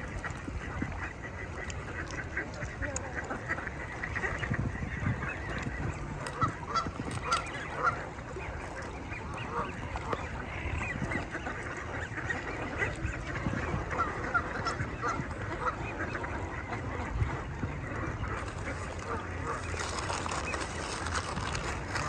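Canada geese honking in a crowded flock of feeding ducks and geese on the water: short calls repeated over and over, busiest about a third of the way in and again around two thirds through, over a steady low rumble.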